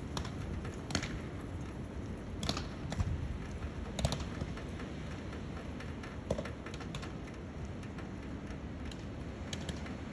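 Steady gusty wind rumbling on the microphone, with scattered sharp ticks and clicks at irregular moments, the clearest about one, two and a half, four and six seconds in.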